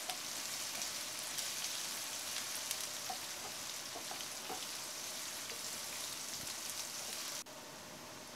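Chopped red onions, curry leaves and chillies frying in hot oil in a frying pan while being stirred with a wooden spatula: a steady sizzle with small crackles. The sizzle cuts off suddenly near the end, leaving a fainter hiss.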